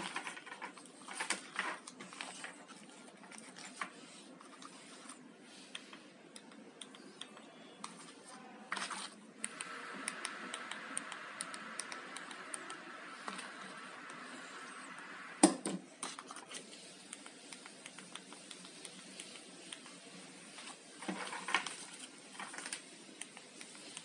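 Scattered light clicks and taps of small plastic remote controls and LED signal units being handled and pressed on a tabletop, with one sharper knock about two thirds through. A faint steady hiss sits under the middle stretch.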